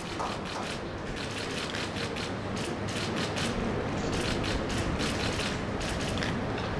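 Many camera shutters clicking rapidly and irregularly, overlapping one another, over a steady low room hum.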